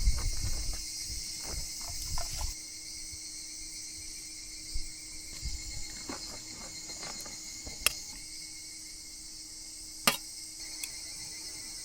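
Insects chirping steadily in a continuous chorus. Low thuds come in the first couple of seconds, and a few sharp clicks follow later.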